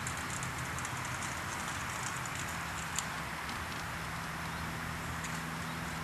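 Steady outdoor background hiss with a faint low hum. A run of light, quick clicks comes in the first half, with one sharper click about three seconds in.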